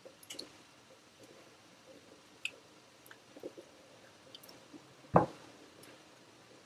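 Thick white sauce being scraped with a spatula from a frying pan into a glass blender jug: soft squelching plops and scattered light clicks of the utensil, with one louder knock a little after five seconds in.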